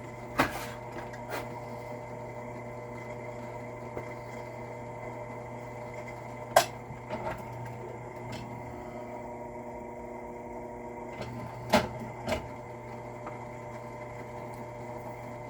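Drill press running steadily with a quad pin roll crimp tool in its chuck, spinning against the fold crimp of a shotgun shell to taper and smooth its edges. A few sharp clicks and knocks stand out over the steady hum.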